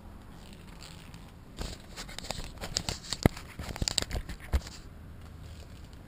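Glossy PVC raincoat crinkling and rustling as it is pulled on and adjusted, with a flurry of sharp clicks and knocks from about one and a half to four and a half seconds in.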